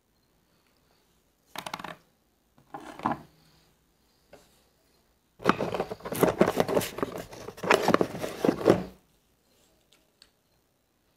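A few short knocks and rustles of small parts being handled on a wooden table, then about three and a half seconds of dense metallic clattering and scraping as a hand rummages through hand tools in a metal tin.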